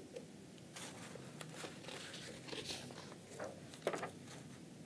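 Faint rustling and a few soft knocks of paper and card being handled as a printed sheet is swapped on a cardboard easel.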